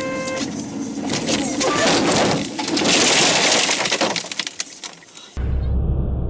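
Car crash heard from inside the car: a brief horn blast at the start, then about three seconds of crunching impacts and breaking, loudest about three seconds in, dying away. Near the end a steady low road-and-engine rumble starts abruptly.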